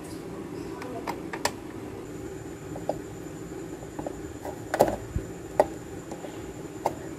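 Light clicks and taps of electronic parts, blue box film capacitors and a blue relay, pushed by hand into the holes of an amplifier circuit board; the loudest clicks come about five seconds in. A steady low hum runs underneath.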